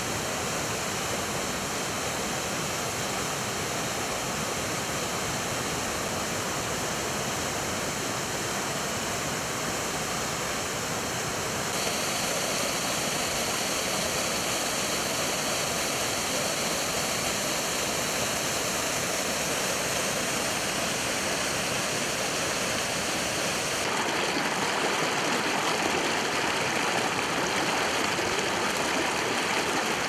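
Small snowmelt-fed mountain waterfalls pouring and splashing down a grassy slope in a steady rush of water. The rush steps up a little in loudness twice, about a third and two thirds of the way through.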